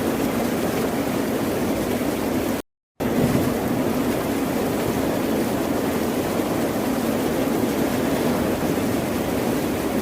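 Ocean surf as a steady, even wash of water noise without distinct wave breaks. It cuts out to complete silence for about a third of a second a little under three seconds in, then resumes.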